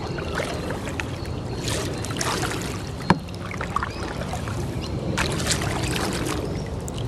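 Kayak paddle dipping and splashing in creek water, two strokes a few seconds apart, with a single sharp knock between them.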